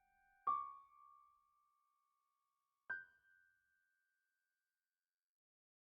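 Two single piano notes about two and a half seconds apart, each struck sharply and fading away, with silence between and after them.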